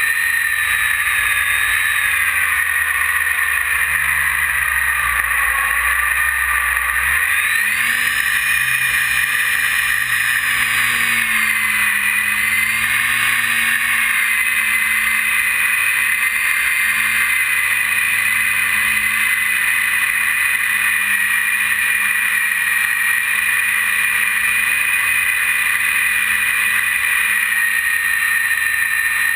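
E-flite 480 1020 kV brushless outrunner motor and propeller of an RC plane in flight, heard from an onboard camera: a steady motor whine with a rushing hiss. The pitch sags a little, then climbs sharply about seven seconds in as the throttle opens, and holds nearly level with slight wavers after that.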